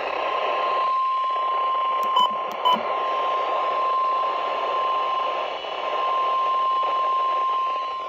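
Midland NOAA weather radio sounding the steady 1050 Hz warning alarm tone over a hiss of radio static, the signal that a warning broadcast is about to follow. Two brief clicks come a little over two seconds in.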